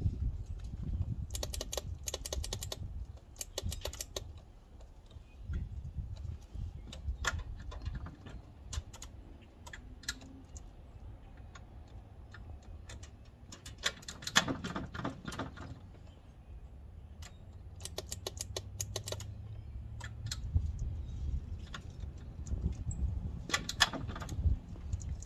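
Starter solenoid on a Yamaha V-twin motorcycle clicking rapidly in several bursts of one to two seconds each as the starter button is pressed. The engine does not crank; the bike was said to need a starter.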